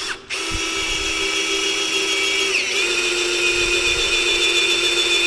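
Cordless Makita drill turning a bimetal hole saw into a steel tube: a steady motor whine that starts just after the beginning, dips in pitch about two and a half seconds in as the saw bites, then runs on slightly lower. The saw is making slow progress, which the user puts down to poor blades.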